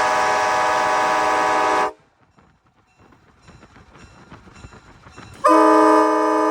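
Nathan K5LA five-chime air horn, a 1994 Graham-White rebuild, blowing a full steady chord that cuts off sharply about two seconds in. After a short quiet gap with faint clicking, the horn sounds again about a second before the end.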